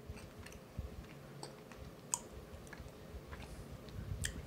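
A man chewing a mouthful of beef jerky with his lips closed: faint, irregular wet mouth clicks and soft low thumps of the jaw.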